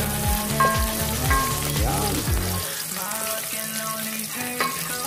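Chopped aromatics sizzling as they fry in hot oil in an aluminium pot, stirred with a wooden spoon. Background music with a thudding bass beat plays over it; the bass drops out about halfway through.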